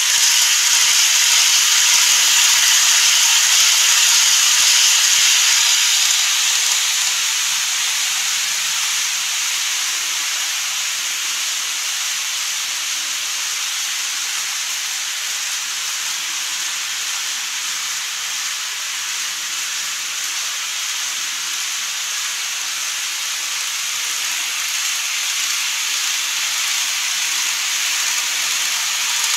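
Model train running past on the track: a steady hissing rattle of wheels and motor, loudest for the first six seconds as the Odakyu 60000 MSE model passes close, then settling to a lower even hiss.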